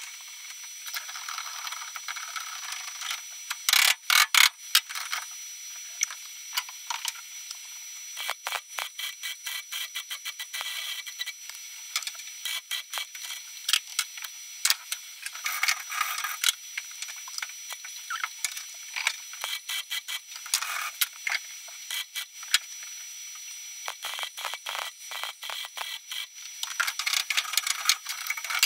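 MIG welder crackling in short bursts as a steel steering-column bracket is plug-welded to the car's bulkhead, with a wire brush scrubbing the fresh welds near the end.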